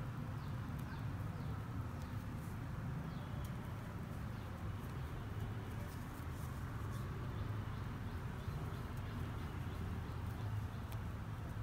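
Quiet room tone: a steady low hum with a few faint, short, high bird chirps.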